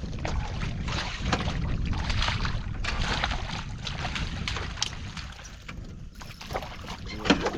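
Wind rumbling on the microphone over water sloshing and splashing around a small fishing boat, with a brief louder sound near the end.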